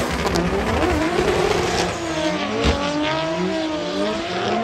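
Drift cars' engines revving hard, their pitch rising and falling again and again over a steady haze of spinning, smoking tyres, with a short thump a little past halfway.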